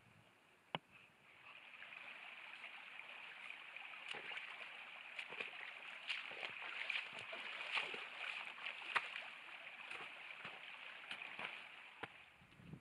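A small mountain stream babbling and splashing, coming up about a second and a half in and fading away near the end, with scattered small clicks over it and one sharp click near the start.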